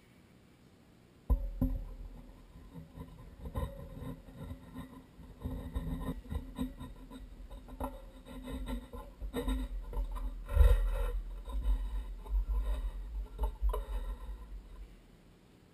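Metal pipe fittings clinking and scraping as a tee with a pressure gauge is screwed by hand onto a threaded pipe on a well pressure tank: irregular clicks and knocks start suddenly about a second in and stop near the end, over a low rumble.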